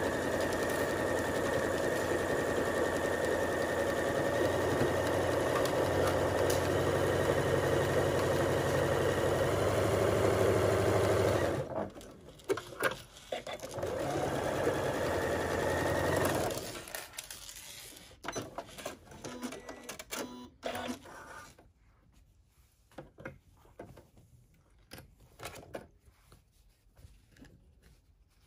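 Electric sewing machine stitching a quarter-inch seam, running steadily for about eleven seconds. It stops, then runs again for about two seconds. After that come scattered small clicks and rustles.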